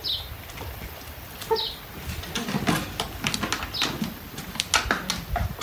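Dog eating a soft treat from the hand: quick wet smacks and clicks of chewing and licking, thickest in the second half. Two short, high, falling chirps come near the start and about a second and a half in.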